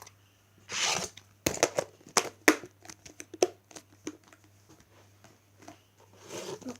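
Butter slime being squished and pulled in the hands: a soft rustle, then a run of sharp sticky clicks and pops, and another rustle near the end.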